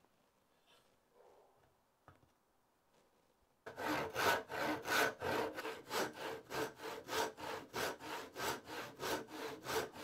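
Handsaw ripping a butternut board along the grain: steady back-and-forth strokes, about three a second, starting a few seconds in after faint handling sounds.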